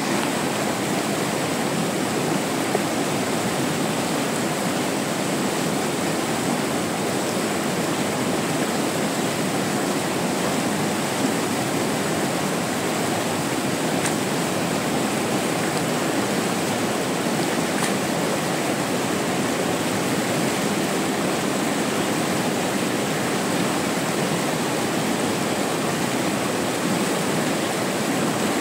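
Steady, even rushing of water, unbroken throughout.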